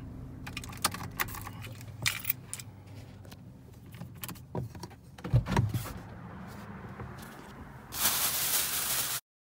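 Car engine idling inside the cabin, a steady low hum, with light clicks and rattles over it and a thump about halfway through. Near the end, plastic grocery bags rustle loudly before the sound cuts off suddenly.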